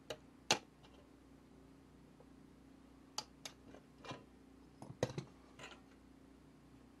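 Scattered light clicks and taps of small parts and tools being handled at a workbench, the sharpest about half a second in and a cluster around five seconds, over a faint steady hum.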